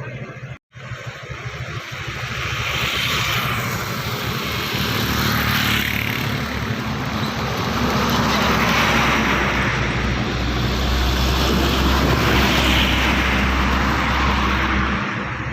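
Heavy road traffic on a highway: the tyre and engine roar of large vehicles such as buses swells and fades in several waves over a deep steady hum. The sound cuts out completely for a moment near the start.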